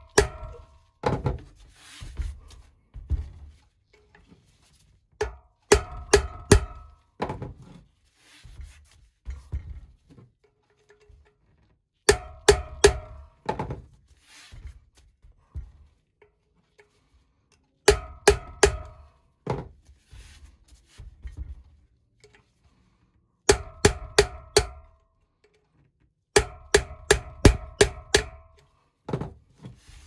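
Hammer striking a flat chisel set in the notch of a stuck BMX freewheel, knocking it round to unscrew it from the hub. The blows come in quick bursts of three to six sharp metallic hits about every five or six seconds, each ringing briefly, with softer knocks from handling the wheel and tools between bursts.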